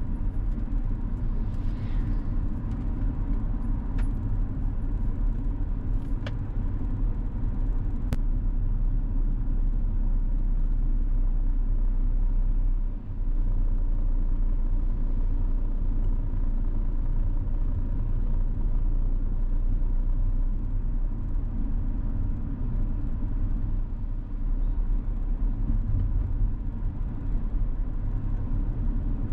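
A car driving along a road: a steady low rumble of engine and tyre noise, with a few faint clicks in the first several seconds.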